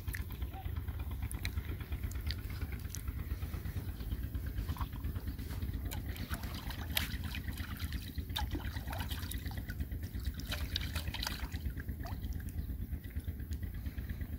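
A plate being rinsed by hand in shallow river water: light splashing and trickling as it is dipped and lifted, with scattered sharper splashes, over a steady low rumble.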